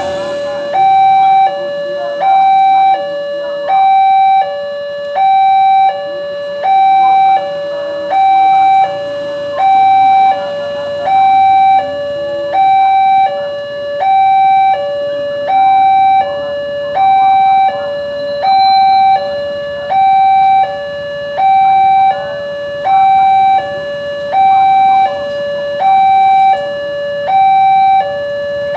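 Electronic two-tone warning signal of a railroad level crossing, alternating steadily between a higher and a lower tone about every 0.7 seconds, the higher tone louder.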